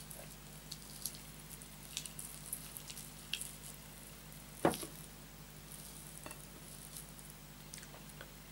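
Close-miked chewing of a mouthful of rice and beef curry eaten by hand: scattered soft, wet mouth clicks and smacks, with one louder smack about halfway through.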